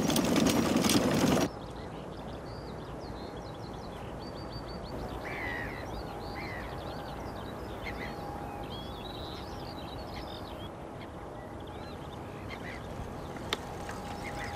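Birds chirping and trilling over a steady outdoor background hiss. A louder, dense sound at the start cuts off about a second and a half in, and there is a single click near the end.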